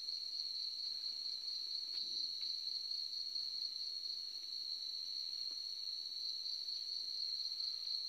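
Night insect chorus: a steady, unbroken high-pitched trill at one pitch.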